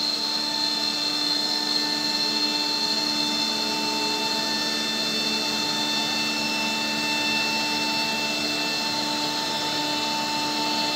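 Multi-spindle CNC router machining a wood panel: its spindles give a steady high-pitched whine over the even rush of cutting and dust extraction, unchanging throughout.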